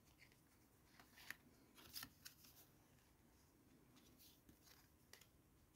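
Faint rustles and light taps of tarot cards being drawn and laid down on a cloth-covered table, a few short ones about one and two seconds in and again near the end, otherwise near silence.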